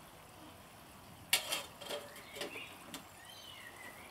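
Clothes pegs clicking and clattering: one sharp click about a second in, then a few lighter clinks. A bird chirps briefly near the end.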